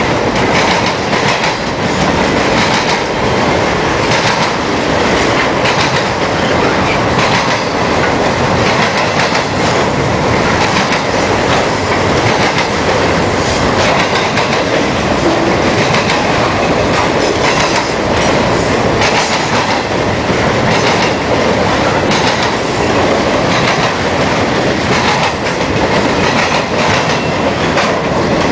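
Cars of a piggyback freight train, truck trailers on flatcars, rolling past close by: a steady loud rumble of steel wheels on rail with repeated clacks as the wheels cross rail joints.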